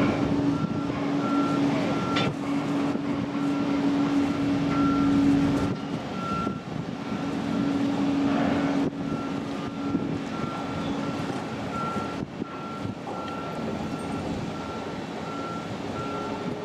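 Patrol boat running at speed: steady engine hum and rushing noise, with a short high beep repeating every second or so.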